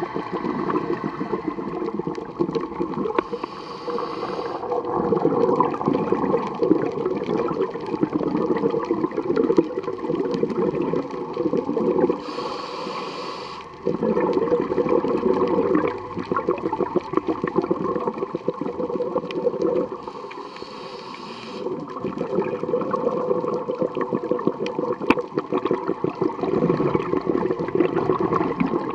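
Scuba diver breathing through a regulator underwater: a long bubbling, gurgling rush of exhaled bubbles, broken three times by a short high hiss of the regulator delivering air on the inhale, in a slow rhythm about every eight to nine seconds.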